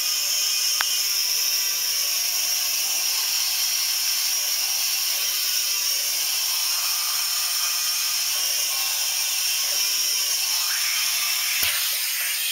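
Compressed air hissing steadily from a shop air hose at the fitting of a prototype pneumatic stilt's cylinder. A single sharp click sounds near the end.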